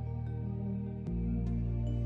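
Calm new-age background music of sustained low chords with soft higher notes; the low chord changes about a second in.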